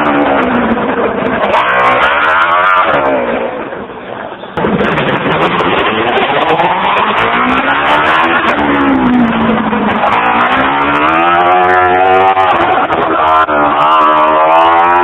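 Motorcycle engine of a home-built buggy revving up and falling back again and again, held in first gear with the gear lever disengaged. The sound fades briefly about four seconds in, then comes back loud.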